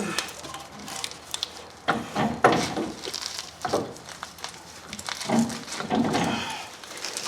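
Irregular knocks, clinks and scrapes of heavy metal front-suspension parts being worked by hand, as the spindle (steering knuckle) is juggled onto the new lower ball joint stud.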